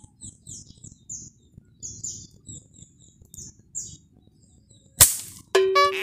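Small birds chirping over and over in short high notes. About five seconds in there is one sharp click, the loudest sound, and just after it a drawn-out bleat begins.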